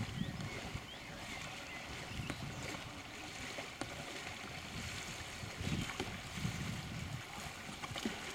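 Double-bladed kayak paddle strokes splashing in calm canal water as a kayak is paddled along, with a bigger splash near the end as a blade slaps the water.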